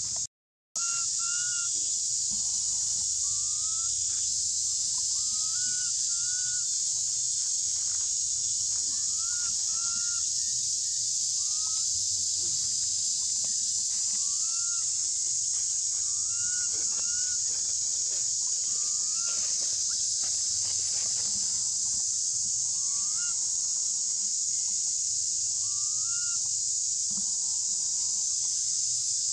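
Baby long-tailed macaque giving short rising coo calls, irregularly about once a second, calling for its mother to take it and let it nurse, over a steady high-pitched insect drone.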